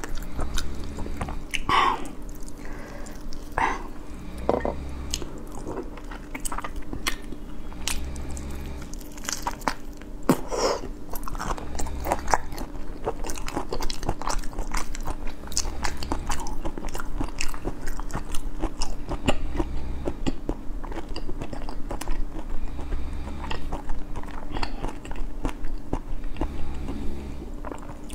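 A person chewing and biting raw whole shrimp close to a clip-on microphone: mouth sounds with many short, irregular clicks.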